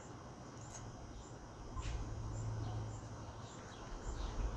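Faint background with insects chirping in a high, regular pulse over a low hum that swells in the middle, and a couple of light clicks.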